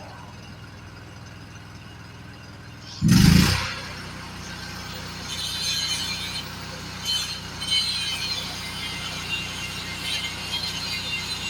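Metal being cut or welded on a gate over the steady hum of an engine. There is one loud thump about three seconds in, then an irregular crackling hiss that comes and goes from about five seconds on.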